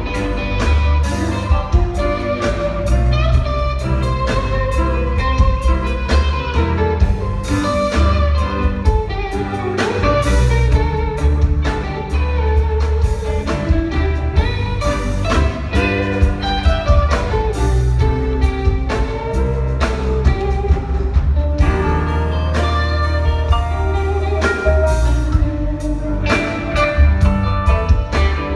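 Rock band playing live: electric guitars, keyboard, bass and drums, with steady drum hits under moving guitar lines, heard from among the audience.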